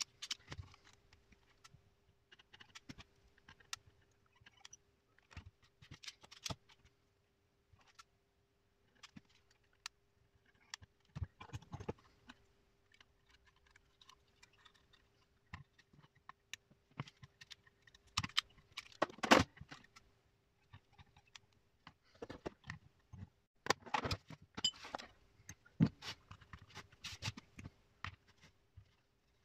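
Scattered small clicks, taps and knocks from hand tools, wire and the metal parts of a homemade crystal radio being handled on a workbench, with a faint steady hum underneath. The sharpest knock comes about two-thirds of the way through.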